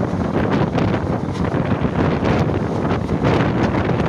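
Heavy wind buffeting the microphone of a camera held out of a moving passenger train, over the steady rumble of the coach running on the rails.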